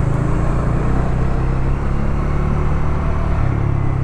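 Motorcycle engine running while riding, mixed with steady wind rumble on a lavalier mic tucked in the helmet's chin curtain with the chin vent open.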